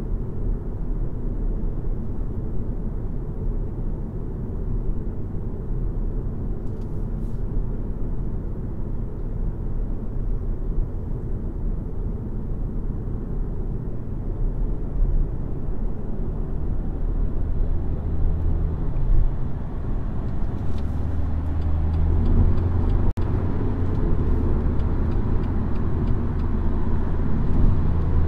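BMW X1 xDrive20d's 2.0-litre four-cylinder diesel car on the move, a steady low rumble of engine and road noise. The engine note grows stronger in the second half, with a brief click and dip about two-thirds of the way through.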